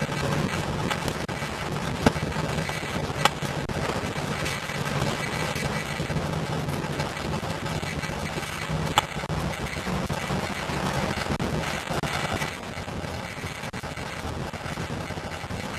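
Steady low rumble of road traffic, with three sharp knocks about two, three and nine seconds in, the first the loudest.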